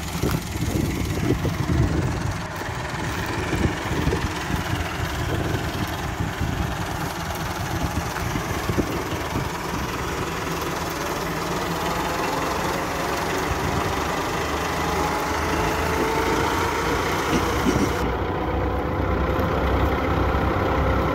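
Massey Ferguson 385 tractor's four-cylinder diesel engine running steadily with a heavy rumble. About halfway through, a whine joins it and slowly rises in pitch, as the PTO-driven wheat thresher winds up to speed.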